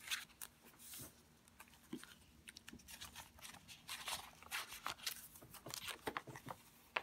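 Paper pages and card tags of a handmade junk journal being handled and turned: a series of soft, short paper rustles and flicks.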